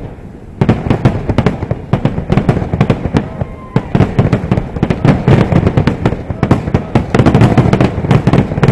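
Aerial fireworks going off in a rapid, continuous barrage of deep bangs and crackling reports, many a second, after a brief lull about half a second in.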